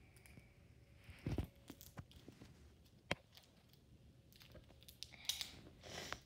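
Scattered clicks, taps and rustles of hands working at a small plastic toy capsule ball, trying to pry it open, with a dull thump a little over a second in and a sharp click about three seconds in.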